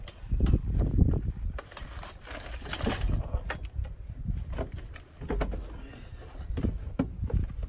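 Scattered knocks, clicks and rustling as a man shifts his body from a wheelchair onto a four-wheeler's seat, with clothing and the machines' metal and plastic parts bumping under his weight.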